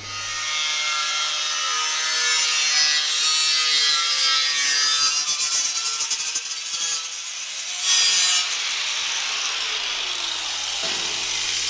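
Power tool cutting or grinding sheet metal: a steady rasping noise with a faint whine that drifts in pitch, louder for a moment about eight seconds in.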